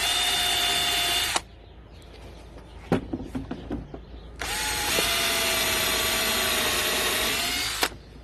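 Electric drill running in two bursts, a short one of just over a second and then a longer one of about three and a half seconds, boring a hole through a new wooden garden fork handle in its metal socket. A few knocks come in the pause between the two runs.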